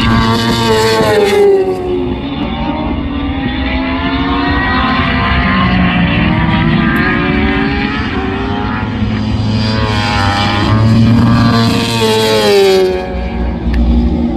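Superbike racing motorcycles passing on a wet track, engine notes rising and falling as the riders work through the gears. A loud pass comes about a second in and another near the end, each with the pitch dropping as the bike goes by.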